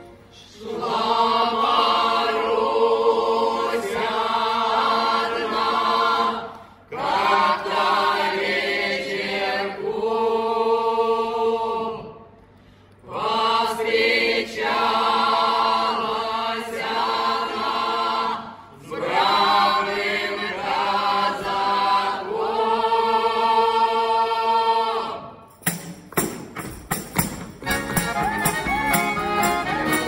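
A mixed choir of men's and women's voices sings a Russian folk song in long phrases with short breaks for breath between them. About four seconds before the end the singing stops and an accordion takes over with a quick rhythmic accompaniment and regular sharp beats.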